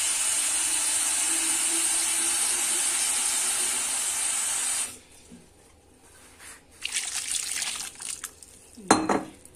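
Water running steadily from a tap into a pot of pine cones, filling it to cover them, then cut off abruptly about five seconds in. Afterwards there are softer handling noises and one sharp knock near the end.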